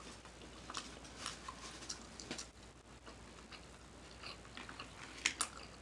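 Quiet close-miked chewing, with scattered wet mouth smacks and clicks at an uneven pace and a louder pair of smacks about five seconds in.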